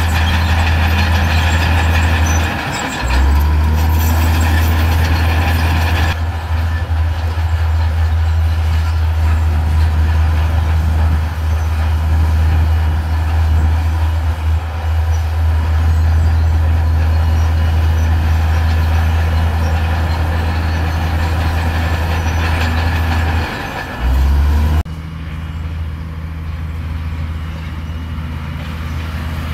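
Heavy diesel earthmoving machinery running with a steady, low engine drone. The sound changes abruptly about six seconds in, and again near the end, where it becomes somewhat quieter.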